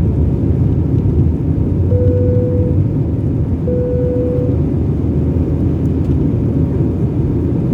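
Steady rumble of an Airbus A320's engines and airflow heard from the passenger cabin in the climb. About two seconds in come two identical chime tones about a second and a half apart: the double chime that signals passing 10,000 feet.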